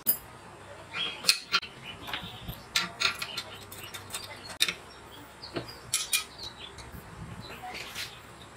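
Irregular sharp metallic clinks and clicks as the steel-plate arms and pivot parts of a homemade belt sander are handled, fitted and swung on their pivot bolt.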